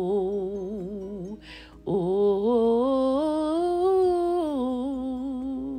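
A woman humming a slow melody in long held notes with a wavering vibrato, in two phrases with a quick breath between them about a second and a half in.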